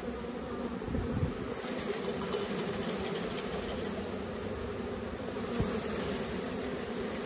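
A package of honey bees buzzing in a steady, dense hum as the wooden package box is shaken out into the hive. A few dull knocks from the box come about a second in and again near the end.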